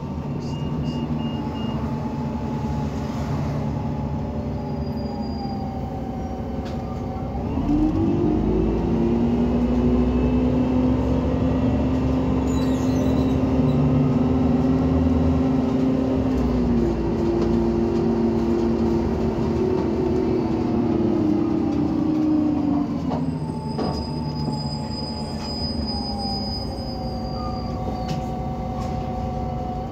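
Irisbus Citelis 18 articulated bus with an Iveco Cursor 8 natural-gas engine and a Voith automatic gearbox, driving in service. The engine and transmission note falls, then climbs and gets louder about eight seconds in as the bus pulls away. The pitch steps about seventeen seconds in and eases off again around twenty-three seconds, with a thin whine falling in pitch near the end.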